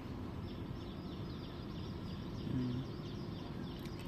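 Steady ambient background noise with faint, high bird chirps repeating throughout, and a brief low tone about two and a half seconds in.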